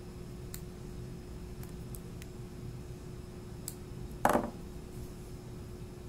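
Handling noise at a workbench as an AC cord's wires are worked with diagonal cutters: a few faint clicks, then about four seconds in one short, loud rattling clatter, over a steady low hum.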